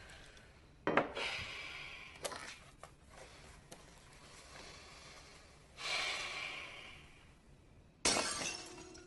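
Glass shattering: a sudden crash about a second in followed by a trailing shower of high fragments, with another burst of breaking a little before the end.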